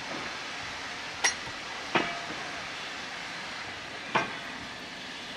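Steam railmotor and its trailer coach rolling slowly past, a steady hiss under three sharp metallic clanks from the wheels and running gear, about one, two and four seconds in.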